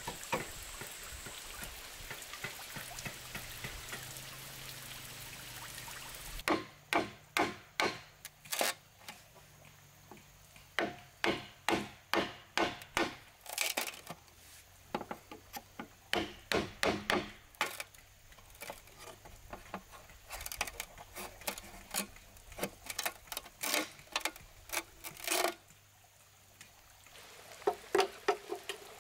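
Green bamboo culm being split with a machete whose back is struck with a wooden stick: sharp knocks in quick runs of several, with short pauses between. It opens with a few seconds of steady hiss from spraying water, and near the end gives way to lighter, quicker knife chops into the bamboo.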